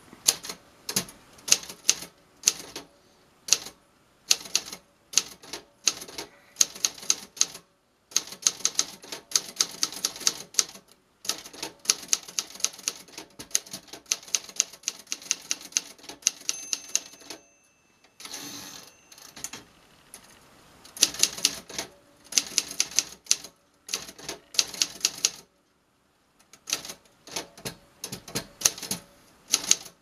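1949 Remington portable manual typewriter being typed on: bursts of sharp key and typebar clacks, several a second, with short pauses between. About seventeen seconds in, the end-of-line bell dings once, and the carriage is returned with a ratcheting sweep.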